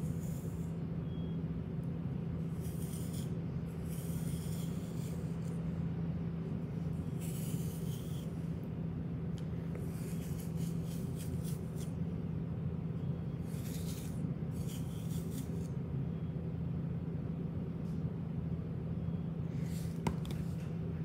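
A small flea comb drawn through a Bernese mountain dog's thick coat, making short scratchy strokes every few seconds, over a steady low hum.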